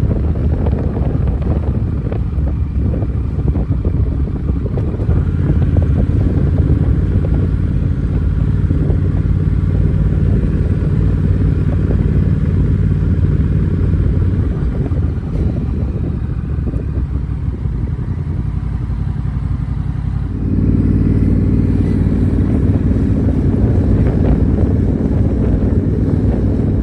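Honda Rebel 1100's parallel-twin engine running while riding, with road and wind noise. It steps up in loudness about twenty seconds in.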